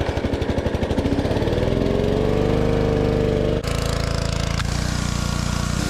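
Pressure washer's Honda GCV small gas engine just started, firing unevenly at first, then picking up speed with a rising whine. About three and a half seconds in its note changes abruptly, as the spray gun comes into use, and it then runs steadily.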